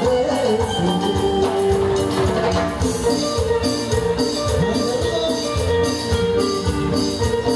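A live Latin dance band playing, with a drum kit and percussion keeping a steady beat under held pitched notes from the other instruments.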